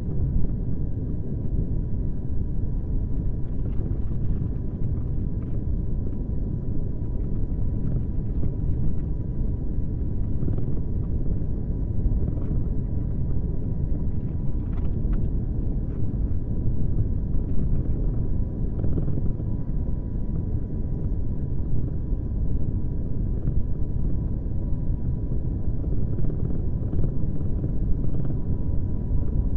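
A car driving along a road: steady low rumble of tyre and engine noise. A faint thin steady whine runs underneath, with a few light ticks here and there.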